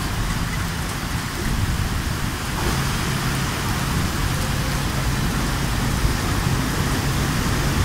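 Heavy rain pouring steadily, with the low hum of twin WDM3D diesel locomotives running into the platform; the engines' hum comes up more clearly about three seconds in.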